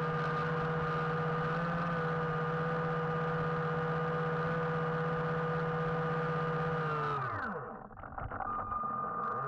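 RC submarine's electric drive motor running with a steady whine. About seven seconds in it winds down with a falling pitch, and a motor whine picks up again near the end.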